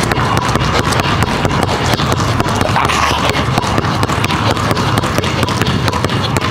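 Two basketballs dribbled alternately on a hardwood gym floor: a quick, even run of bounces.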